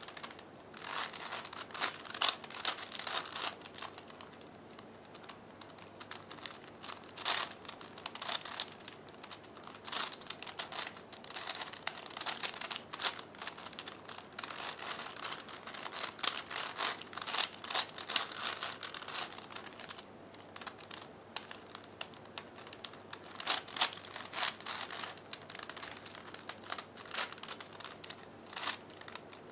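A 5x5x5 V-Cube puzzle being turned by hand: quick plastic clicking and clacking of its layers, in runs of rapid turns broken twice by pauses of a few seconds.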